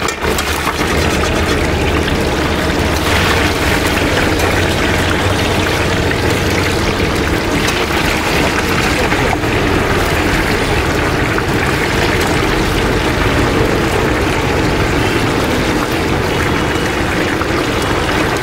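Stuffed mussels deep-frying in hot sunflower oil, a steady, dense sizzle.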